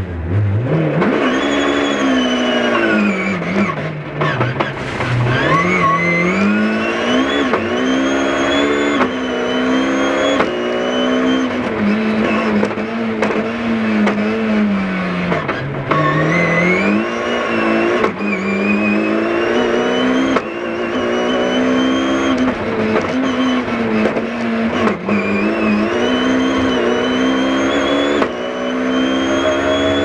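BMW rally car's engine heard from inside the cabin, driven hard: its pitch keeps climbing under acceleration and dropping back at gear changes and lifts, with several abrupt jumps in the sound.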